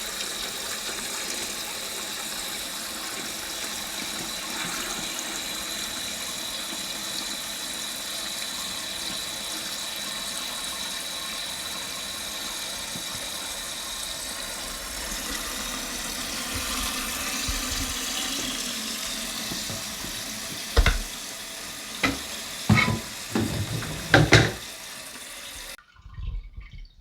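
Water running through a newly installed Fluidmaster toilet fill valve as the tank refills: a steady hiss with a faint high whistle. Several sharp knocks come near the end, and the sound stops abruptly shortly before the end.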